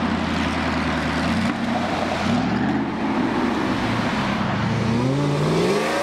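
Pickup truck engines running as the trucks pull in, a steady engine hum at first; near the end one engine revs up, its pitch rising.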